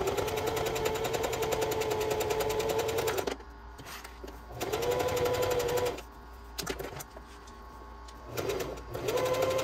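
Singer sewing machine stitching in three runs: a long run of about three seconds, a short burst midway, and another starting near the end, each a steady motor whine with a fast, even needle rattle. It is basting layers of canvas and lining together, with a few small clicks in the pauses.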